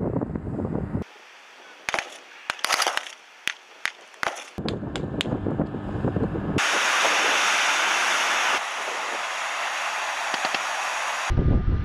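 Scattered sharp cracks of distant gunfire over a low rumble of boat engines and surf. About halfway through comes a loud, steady rushing of water and spray from a landing craft pushing through the surf.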